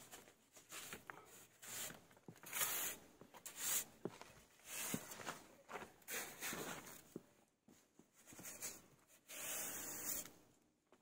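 Steel trowel scraping and scooping damp sand-cement mortar into a bed for cobblestones: a run of irregular gritty scrapes, with a few short clicks of the stones being handled.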